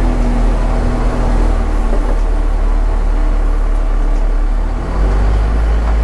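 Isuzu NPS81UHH truck's 4.8-litre 4HL1 turbo-diesel engine running steadily under load, driving the truck through soft sand in four-wheel-drive high range.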